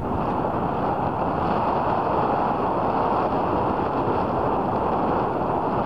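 Airbus A380 jet engines running at taxi power, a steady rushing noise, with wind buffeting the microphone.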